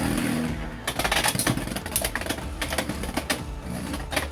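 Two Beyblade X spinning tops, Phoenix Feather and Hell's Chain, spinning and clashing in a plastic stadium: a fast, irregular clatter of clicks and knocks as they hit each other and the stadium walls.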